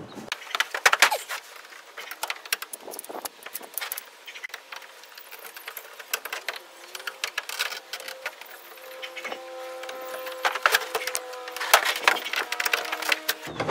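Irregular clicks and scrapes of a hand screwdriver working at old, rusted square-head screws in a camper shell window frame, which are nearly stripped. A steady hum with several tones comes in about halfway and stops just before the end.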